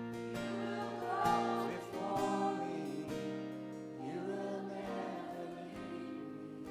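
Worship band playing softly: held keyboard and acoustic guitar chords, with a woman's voice singing over them.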